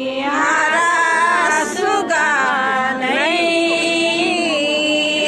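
A group of voices singing an unaccompanied Kurukh lota pani welcome song, holding long notes that slide up and down between pitches.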